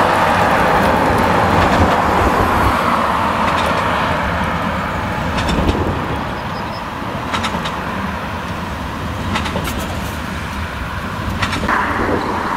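Tractor and large square baler at work in the field: a steady engine rumble with a sharp knock about every two seconds. It is a little louder in the first half.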